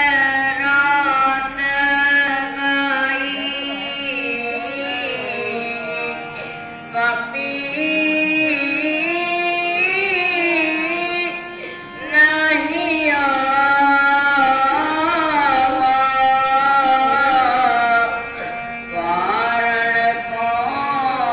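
A sung lament with instrumental accompaniment for a Ramleela stage scene: a singer holds long, slowly bending notes in several phrases, breaking briefly about seven and twelve seconds in.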